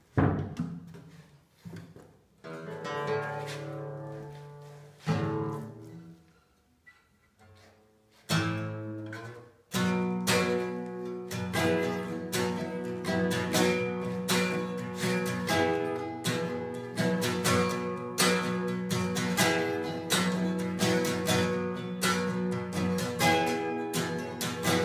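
Acoustic guitar being picked up with a few knocks and bumps. A couple of strummed chords are then left to ring, with a short pause between them. From about ten seconds in, a steady strummed rhythm begins.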